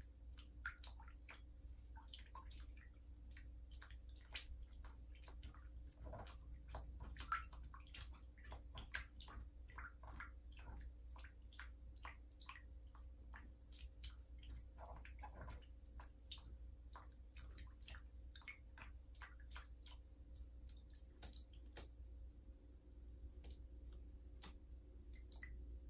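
A cat pawing at shallow bathwater in a tub: faint, irregular little splashes and drips, one slightly louder about seven seconds in, over a low steady hum.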